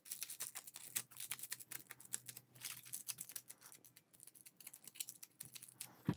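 Aluminium foil crinkling in the fingers as small pieces are pinched and twisted together: a rapid, irregular run of faint crackles.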